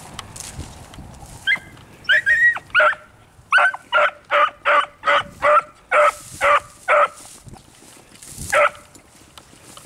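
Hunting beagle giving tongue on a scent track: a run of short, ringing barks, about two a second, starting about a second and a half in, with one last bark near the end.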